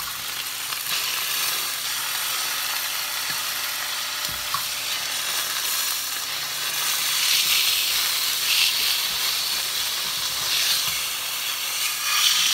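Chicken frying in a pan, sizzling steadily, with the sizzle swelling louder a few times in the second half.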